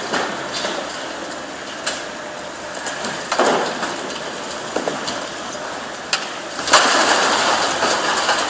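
High-reach demolition excavator tearing down a concrete tower block: a steady machine noise under scattered cracks and knocks of concrete being crushed. Near the end, a sharp crack opens a louder rush of breaking and falling concrete.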